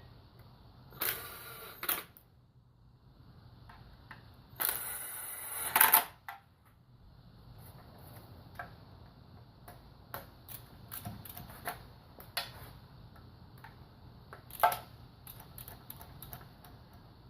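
Hand tools working on metal engine parts: two bursts of rapid clicking, the second the louder, then scattered light clicks and taps.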